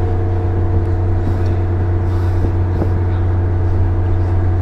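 Leyland Olympian double-deck bus running at a steady speed, heard from inside the passenger saloon: a loud, even low drone with several steady tones above it and no change in pitch.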